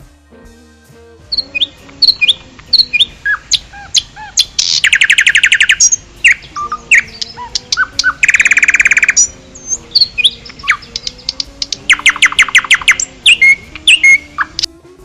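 A songbird singing: short chirps and whistled notes broken by three rapid trills, over soft background music.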